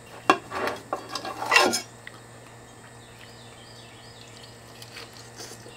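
Knife and fork clinking and scraping on a plate as a steak is cut, with one sharp clink about a third of a second in; the clatter stops after about two seconds.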